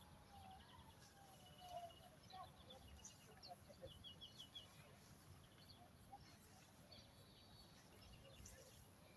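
Faint birdsong: several small birds chirping, with short gliding calls and quick trills of a few repeated high notes, over a steady hiss.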